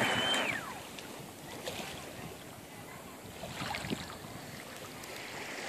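Radio-controlled offshore speedboat's motor whining at a steady high pitch, then falling in pitch and fading out within the first second as the boat slows to a stop. After that only faint wind and water.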